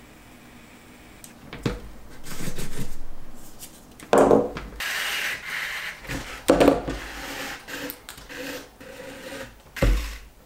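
Hand-stitching leather: waxed thread pulled through the leather with rubbing swishes, mixed with sharp knocks of hands and tools on the table, about three of them.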